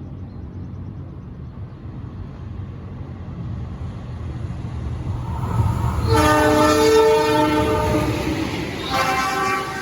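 An approaching train's rumble grows louder, then its horn sounds a long chord of several tones for about two seconds, followed by a second, shorter blast near the end.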